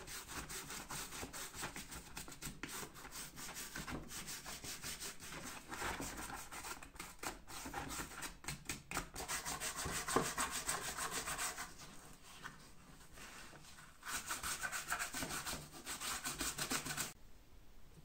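A toothbrush scrubbing the old leather skin of a fireplace bellows in rapid, short back-and-forth strokes. The scrubbing eases off for a couple of seconds past the middle, picks up again, then stops shortly before the end.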